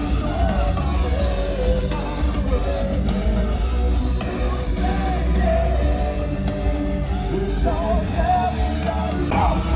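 A metalcore band playing live at full volume: electric guitars, bass and drums, with singing and yelled vocals over them.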